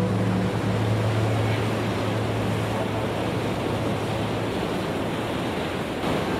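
Sea water and wind rushing steadily, with a low steady hum underneath that fades out about two-thirds of the way through.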